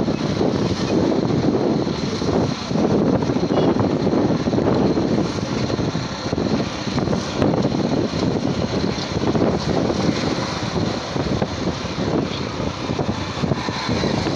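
Wind buffeting the microphone and the rushing noise of a motorcycle on the move, steady throughout.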